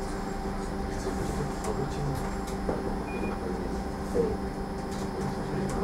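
Cabin noise inside a SOR EBN 9.5 electric city bus on the move: a steady hum from the electric drive over road and rolling noise, with occasional light rattles.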